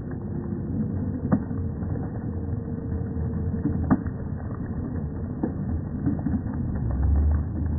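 Stadium crowd noise after a touchdown, slowed down so that it comes out as a deep, muffled rumble, with a few sharp knocks in it.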